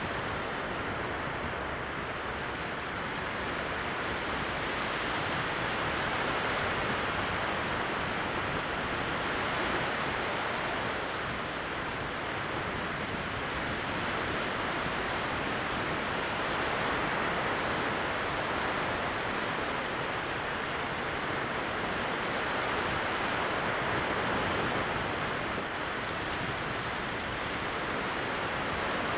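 Small waves on a calm sea breaking at low tide: a steady wash of surf that swells and eases slowly every several seconds.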